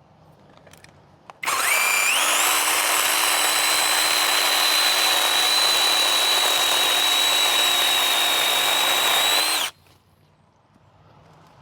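DocSmart 8-inch cordless brushless electric chainsaw (21 V battery) starting about a second and a half in. Its high motor whine rises as it spins up, holds steady for about eight seconds while trimming a tree branch, then cuts off suddenly.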